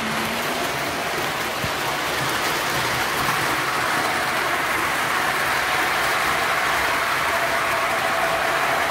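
Several O scale model trains running on three-rail track: a steady rolling clatter of metal wheels on rail, with a thin steady hum underneath.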